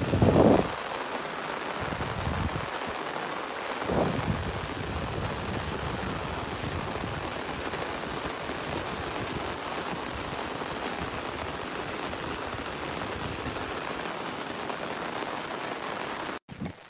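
Steady rain falling, an even hiss, with two brief low rumbles near the start and about four seconds in; the sound cuts off abruptly just before the end.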